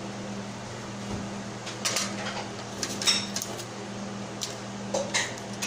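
Light metallic clinks and knocks from a stainless steel cooking pot and utensils, a few scattered about two, three and five seconds in, over a steady low hum.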